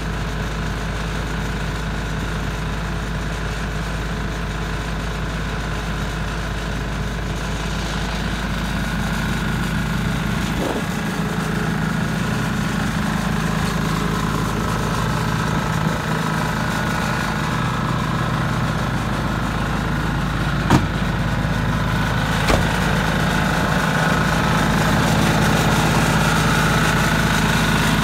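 An engine idling steadily throughout, with a few sharp knocks over the second half.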